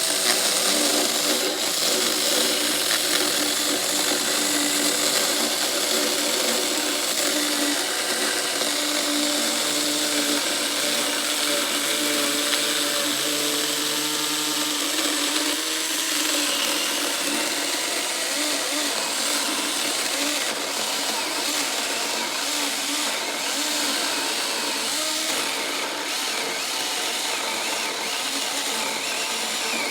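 Saker battery-powered mini electric chainsaw running steadily under load, its chain cutting through a thick 4-by-6 pressure-treated wood beam. The motor hum wavers slightly in pitch as the chain works through the wood.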